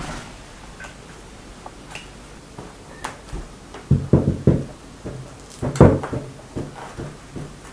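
Plastic cling film being pulled off its roll and spread over dough pieces on a wooden board, with scattered clicks and a few sharp knocks about four seconds in and again near six seconds.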